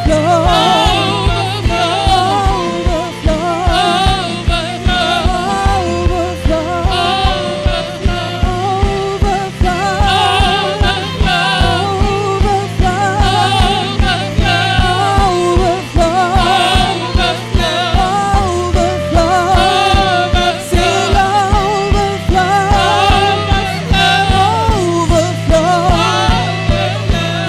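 Live gospel worship song: women singing with vibrato at microphones over a band of drums, guitars and keyboard, with steady bass notes and an even drum beat.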